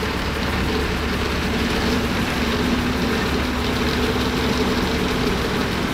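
Diesel engine of a T-150 wheeled tractor loader idling steadily, a constant low rumble with a steady hum.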